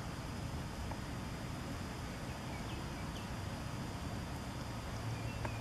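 Steady outdoor background noise: a low rumble with a thin, steady high-pitched tone and a few faint, short chirps.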